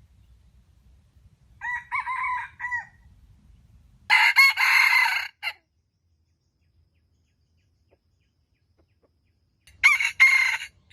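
Jungle fowl roosters crowing three times: a fainter crow about two seconds in, then two loud, harsh crows, one about four seconds in and one near the end.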